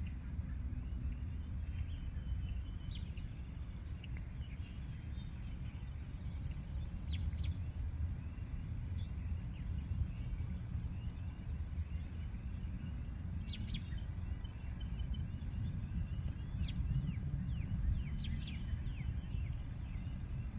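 Scattered short, high chirps from small animals, many falling quickly in pitch, in loose clusters about a third of the way in, two-thirds in and near the end, over a steady low rumble.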